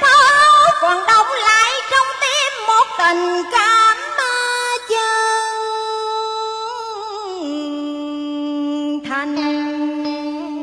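A woman singing a cải lương vocal line with heavy vibrato and ornamented bends in pitch, settling into a long held note that steps down about seven seconds in, then a few short notes near the end.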